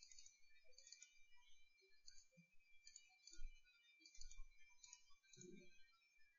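Near silence with a series of faint computer mouse clicks, about eight in all, over a thin steady high-pitched whine.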